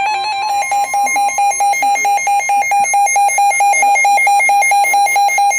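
Emergency alert attention tone ahead of a snow squall warning: a loud, buzzy beep pulsing about four times a second, starting about half a second in.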